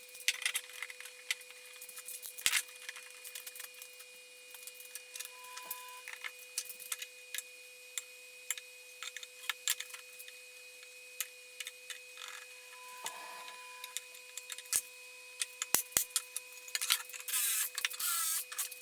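Scattered sharp clicks and light taps of small hard objects being handled, over a faint steady whine, with a short rustle near the end.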